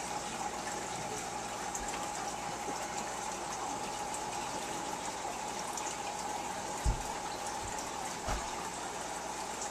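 Steady rushing, trickling water in a turtle tank over a steady hum, with two soft low thumps near the end.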